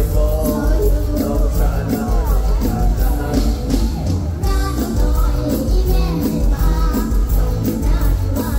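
Live mor lam band music played loud through stage speakers, with a heavy bass beat and a voice singing over it.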